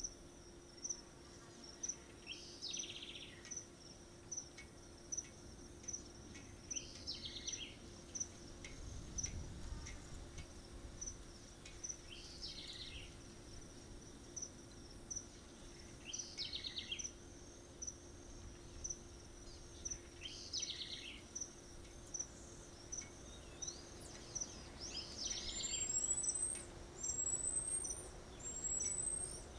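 Tropical forest ambience of insects and birds: a steady high trill pulsing about twice a second, a buzzy call repeating every four seconds or so, and four short rising high chirps near the end.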